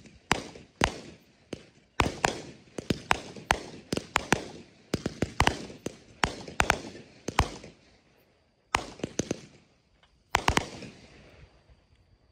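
Aerial fireworks going off in quick succession: a string of sharp bangs, each with an echoing tail. They pause briefly around eight seconds in, then come in two more short clusters and die out near the end.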